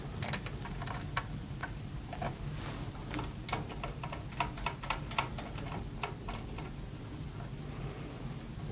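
Light, irregular metallic clicks and ticks as the metal thumb screws of a Corsair H105 AIO cooler's pump block are turned down onto the CPU mounting bracket by hand. The clicks come thickest in the middle and thin out near the end.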